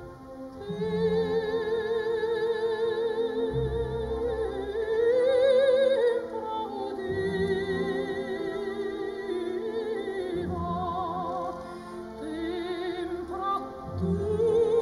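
Music: a solo voice singing long, slow notes with wide vibrato in an operatic style, over low sustained chords that change every few seconds.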